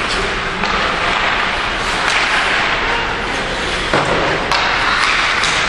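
Ice hockey in play from rinkside: a steady loud rink din of skating and play, with two sharp hockey knocks about four and four and a half seconds in.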